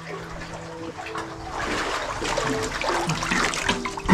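Water splashing and sloshing close to the microphone as a person wades through a cave pool, growing louder about a second and a half in.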